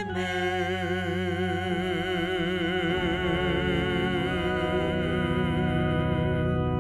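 A hymn being sung to electronic keyboard accompaniment: a singer holds one long note with a steady vibrato over sustained keyboard chords, which change twice beneath it.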